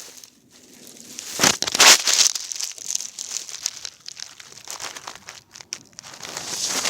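Close, loud crinkling and rustling with no clear pitch, coming in uneven bursts. It is loudest about one and a half to two seconds in and swells again near the end.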